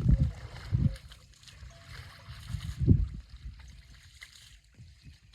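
Water buffaloes moving in water: splashing and sloshing in heavy surges at the start, just before one second in, and about three seconds in.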